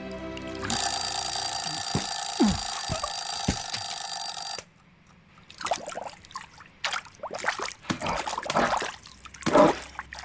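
A loud bell rings steadily for about four seconds and then cuts off suddenly. After it comes a string of short scattered cartoon sound effects: clicks and small squelchy noises.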